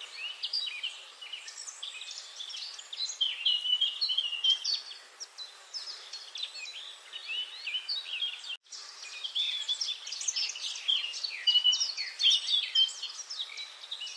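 A chorus of many small songbirds chirping at once, a dense stream of short, high, overlapping calls and twitters over a faint hiss. The sound drops out for an instant about eight and a half seconds in.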